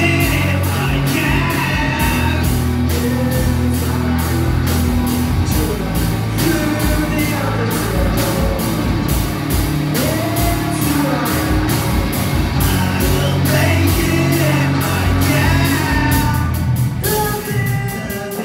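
Live rock band playing: electric guitars and a drum kit keeping a steady beat, with a vocalist singing over them.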